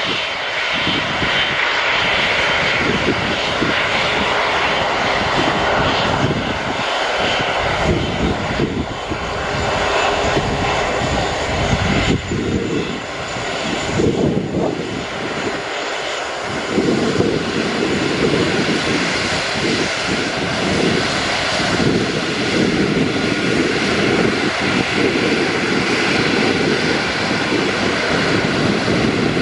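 Airbus A330 airliner's twin jet engines running as it rolls along the runway on the ground: a steady whine and rush of engine noise over a low rumble that swells and fades.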